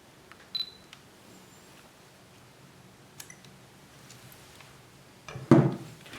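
Fujifilm X-T1 mirrorless camera being tried out: a sharp click with a short high electronic beep, then a few faint clicks. Louder knocks and handling noise come in the last second.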